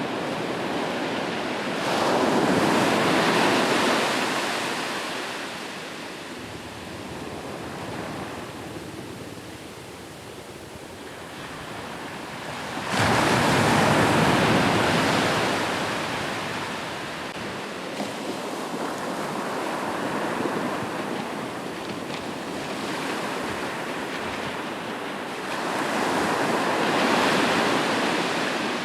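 Ocean waves breaking on a shore in a steady wash of surf, with three larger breakers swelling up, one sudden about halfway through, each receding over several seconds. Some wind noise on the microphone.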